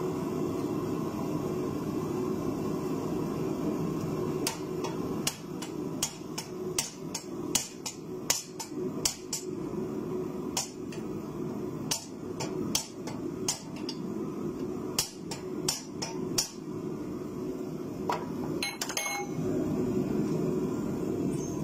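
Hand hammer striking a pipe drift to drive a red-hot mild-steel cross guard down onto a sword's tang: a run of sharp metallic blows at an uneven pace, starting about four seconds in and dying out near the end. A steady low drone runs underneath.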